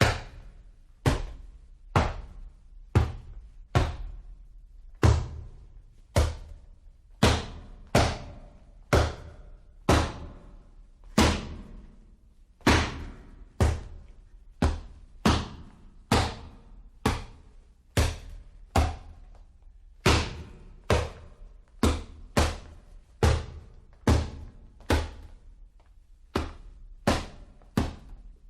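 Boxing punch sound effect: a long series of hard, thudding hits, about one a second, each dying away quickly.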